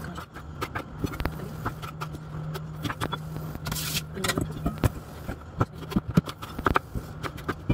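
Chef's knife cutting through winter melon and knocking on a bamboo cutting board in irregular chops, over a steady low hum. A brief scrape comes about four seconds in.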